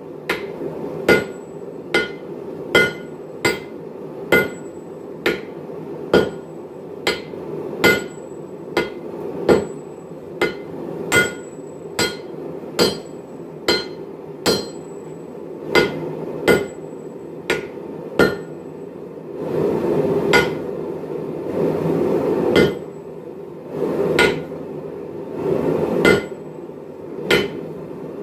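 Hand hammer and sledgehammer striking a hot Damascus billet on an anvil, blows alternating between smith and striker at a steady pace a little under a second apart, each with a short metallic ring. This is forge-welding the layered billet under the hammer. A louder rushing noise fills the gaps between blows about two-thirds of the way through.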